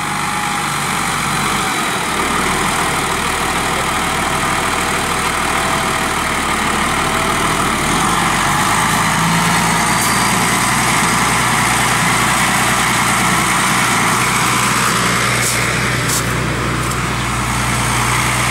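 Belarus MTZ-1221 tractor's six-cylinder diesel engine running steadily as the tractor is driven through slush on a test of its front-wheel drive, which is not engaging. The engine note shifts about two seconds in and again about eight seconds in.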